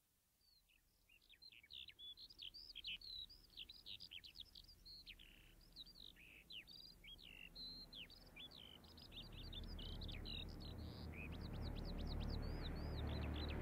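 Birdsong of many quick, falling chirps, with the low drone of an approaching aircraft swelling up underneath from about nine seconds in.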